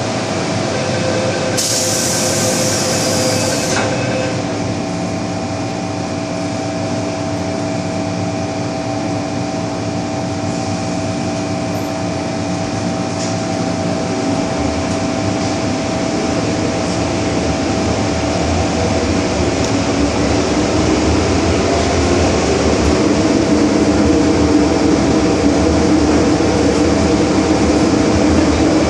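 Inside an MTR M-Train subway car: a high, bright warning sound for about two seconds near the start as the doors close, then the train's steady running hum and tones. From about twenty seconds in, the sound grows louder as the train pulls away and picks up speed.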